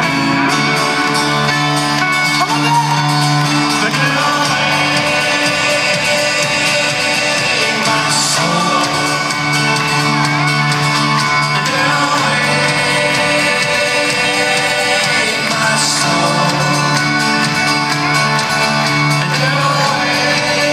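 Live folk-rock band playing at full volume in a large arena, with singing and crowd shouts over the music, heard from the audience with the hall's reverberation.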